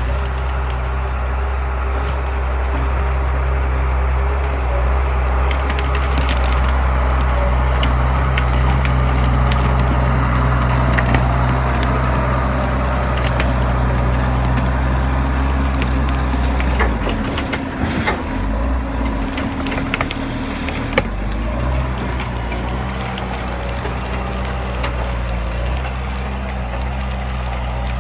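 Tractor engine running steadily while pulling a manure spreader, with scattered cracking and crunching over the top. About seventeen seconds in the engine note dips and changes for a few seconds, then settles back to a steady run.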